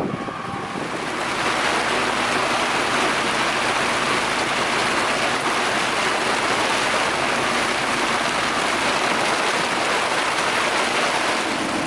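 Steady rushing of water along a motoring sailboat's hull, swelling about a second in, with a faint engine hum underneath.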